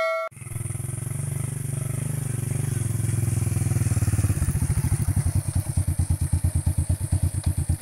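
Small motorcycle engine running as the bike rides up, then settling into an even, slower beat about four seconds in.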